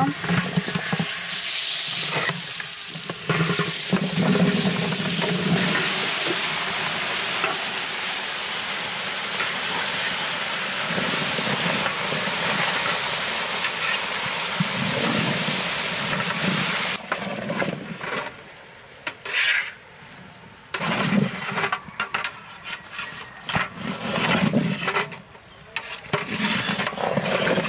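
Pumpkin pieces sizzling in a pan of hot oil with onion and spice pastes, stirred as they fry. About two-thirds of the way through, the steady sizzle drops away, leaving scattered scraping and knocking.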